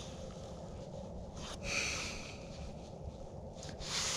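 A person breathing: a short airy exhale about one and a half seconds in and another near the end, over faint steady background noise.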